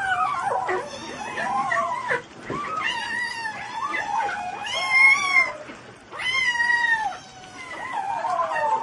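A pet animal yowling: about six long, wavering calls in a row, each lasting about a second and rising then falling in pitch.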